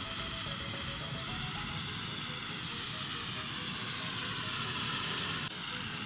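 Pulse FPV toy quadcopter's small electric motors and propellers whining in flight, heard through the drone's own onboard camera microphone over wind rumble. The whine drifts up and down with throttle and jumps abruptly about a second in and again near the end.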